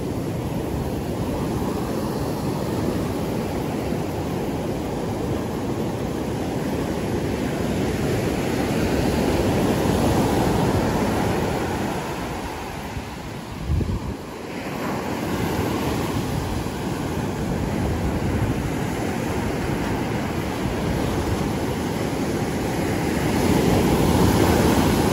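Ocean surf breaking and washing up the beach, with wind buffeting the microphone. The surf swells loudest about ten seconds in and again near the end.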